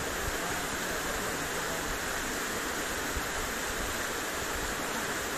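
Narrow waterfall pouring into a rocky plunge pool: a steady, unbroken rush of falling water.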